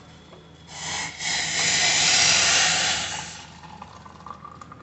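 Hot kadha poured from the pan through a strainer into a cup: a steady, splashing pour lasting about three seconds, starting about a second in.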